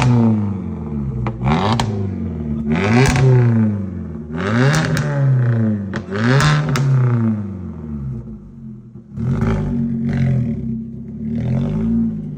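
Volvo C30's 2.0 Duratec four-cylinder engine revved up and let fall about eight times through a loud modified exhaust, with a few sharp cracks between the revs.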